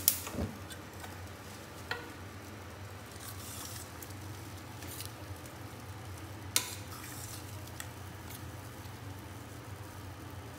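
Spoon stirring cooked dal in a stainless steel pressure cooker, with a few sharp clinks of the spoon against the pot, the loudest about six and a half seconds in. A steady low hum runs underneath.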